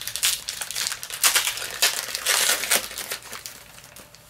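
Foil Yu-Gi-Oh booster pack wrapper crinkling and tearing as it is opened, loudest from about a second in and fading away near the end.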